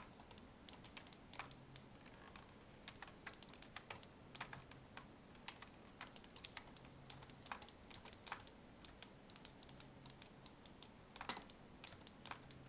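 Faint computer keyboard keys tapped in short, irregular clicks, over a low room hiss.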